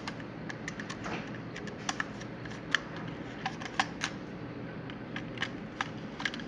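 Scattered light clicks and taps of small hardware being handled, irregular and a few each second, over a steady low hum.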